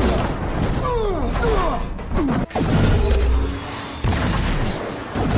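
Film fight sound effects: a heavy low rumble with booms and thuds, several falling whooshes in the first half, and a sharp hit about two and a half seconds in, over background score.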